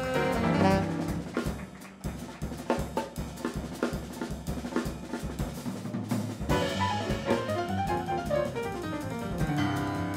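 Live jazz quartet: an alto saxophone phrase ends about a second in and the drum kit carries on almost alone for a few seconds, as in a drum break between solo phrases. Melodic lines come back in about six and a half seconds in.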